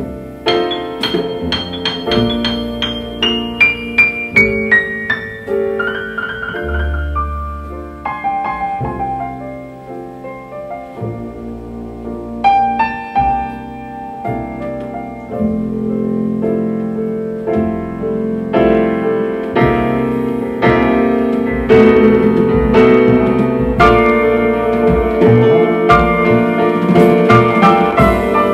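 Piano music played back through a 6V6 single-ended valve amplifier and horn loudspeakers. It opens with a falling run of single piano notes, then moves into fuller sustained chords that build louder in the second half.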